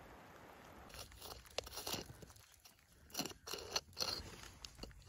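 A faint steady hiss, then from about a second in a claw hammer digging into crumbly dark rock, with irregular crunches and scrapes as the rock breaks away.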